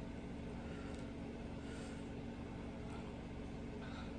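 Steady low hum of room background noise: two close low tones over a faint hiss, with no clear events.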